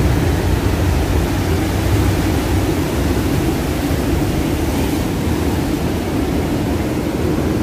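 Heavy surf breaking against rocks and strong wind: an even, steady rush of noise.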